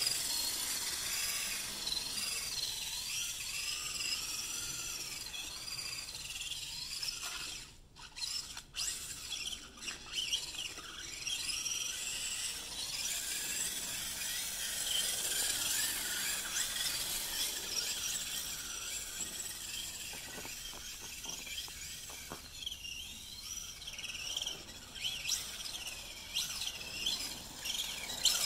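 Radio-controlled prerunner truck driving and sliding on a driveway: a high-pitched motor whine that keeps rising and falling with the throttle. It briefly drops out a few times.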